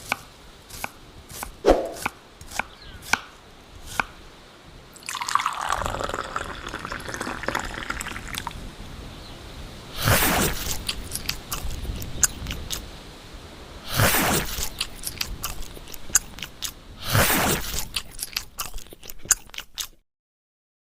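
Scattered sharp clicks and drips, then a swell of noise with a falling tone and three loud hissing bursts a few seconds apart, cutting off suddenly near the end.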